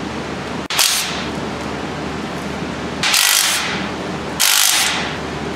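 A cordless impact wrench with a 14 mm socket, run in three short bursts to loosen the front flange bolts of the Honda Pilot's driveshaft. A steady low hum runs underneath.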